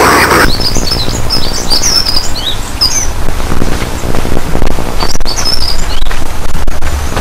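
Small birds chirping in quick, high twittering calls, in two bouts, over a steady low hum. A loud harsh sound from the alert card cuts off about half a second in.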